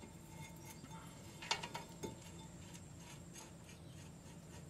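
Faint metallic clicks and clinks as a steel caliper bracket bolt is fitted and turned by hand into the knuckle, the sharpest click about a second and a half in.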